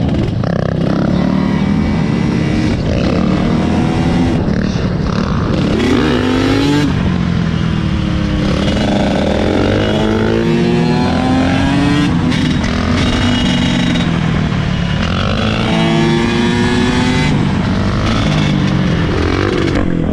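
Dirt bike engines revving through wheelies, the pitch climbing and dropping again and again every couple of seconds.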